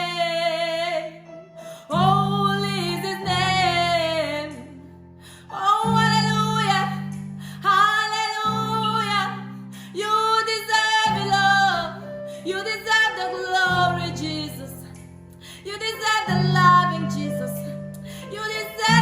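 A woman singing a slow worship song in long, gliding held notes, over backing music of sustained chords that change every two to three seconds.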